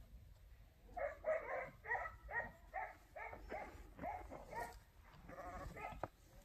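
A dog whining in a rapid string of short, high, pitched cries, two or three a second, starting about a second in.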